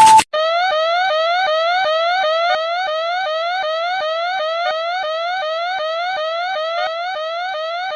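Electronic timer alarm sounding as the ten-minute countdown runs out: a brief steady beep, then a rapidly repeating rising whoop, about three sweeps a second.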